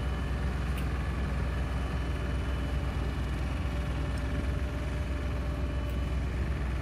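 Asphalt paver and dump truck diesel engines running steadily: an even low rumble with faint steady tones above it.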